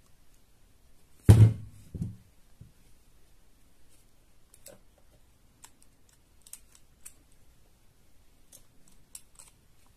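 Handling noise of a plastic USB capture dongle and a phone over a table: a dull thump about a second in and a softer one just after, then faint scattered clicks and taps as the USB plug is lined up with the phone's adapter.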